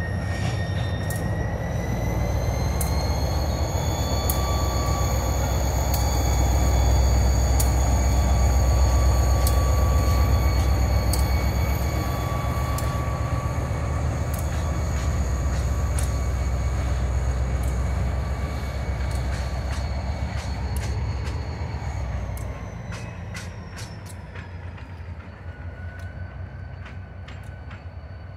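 NYSW 3618, a Susquehanna diesel freight locomotive, pulling covered hoppers past and away: a deep engine rumble with a whine that rises in pitch about two seconds in, with scattered clicks from the wheels on the rails. About 22 seconds in the whine drops and the sound fades as the train pulls off.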